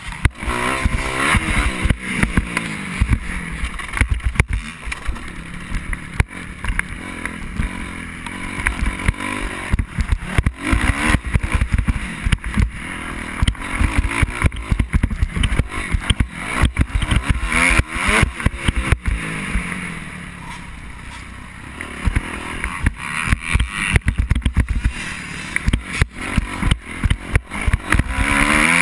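Dirt bike engine revving up and down as it rides a motocross track, heard through heavy wind buffeting and knocks on the mounted camera's microphone. The engine eases off briefly about two-thirds of the way through, then picks up again.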